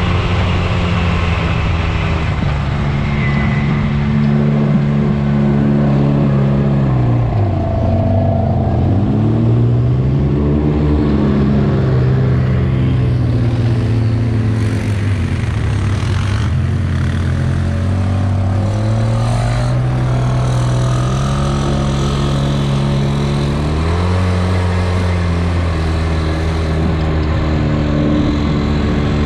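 A side-by-side UTV's engine running under varying throttle. Its pitch falls and climbs several times: it drops low about a quarter of the way in and again around the middle, then rises and holds higher near the end.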